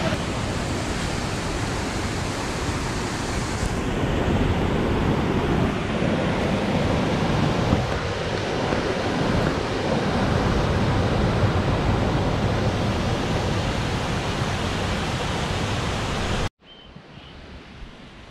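Waterfall and rapids: a loud, even rush of falling water. A second or two before the end it cuts off suddenly to a much quieter forest background with a faint high chirp.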